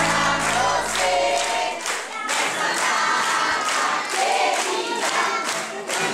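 A group of people singing together while clapping in a steady rhythm, with background music fading out about two seconds in.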